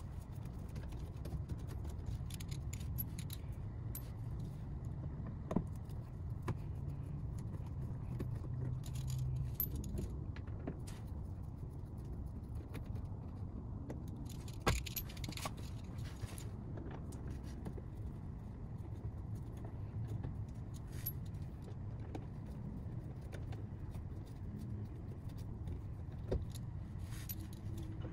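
Scattered metallic clicks and clinks of a Torx T25 driver and loose screws as the screws holding a car's plastic under tray are backed out one by one, over a steady low hum.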